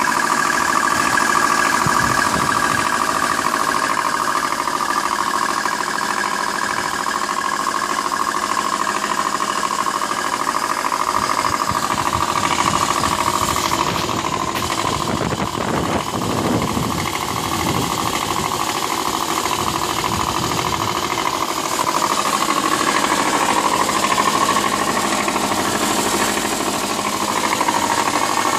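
2003 Subaru Baja's 2.5-litre EJ25 flat-four engine running cold with a very loud, rapid metallic knock in time with the engine. The owner takes it for rod knock rather than piston slap, since there are metal shavings in the oil.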